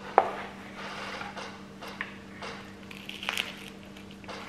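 A toasted chicken panini handled in a cardboard takeaway box and bitten into: a sharp click near the start, soft handling rustles, then a crackly crunch of toasted bread about three seconds in. A faint steady hum runs underneath.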